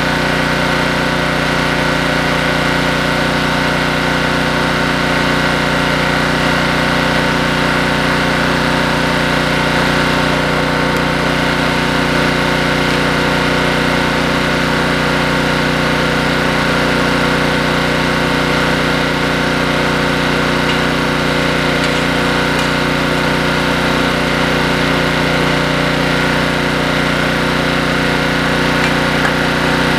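Honda EG1400X portable generator's small four-stroke engine running steadily under a light electrical load, at an even speed and level throughout.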